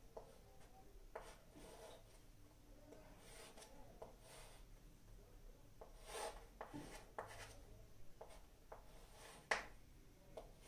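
Chalk scraping and tapping faintly on a chalkboard as lines are drawn, in short strokes with a sharper tap near the end.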